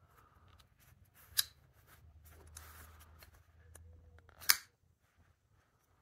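CJRB Feldspar folding knife's D2 steel blade being flipped by thumb and clicking into position in its G10 handle: two sharp clicks, about a second in and again about three seconds later, with faint handling rustle between.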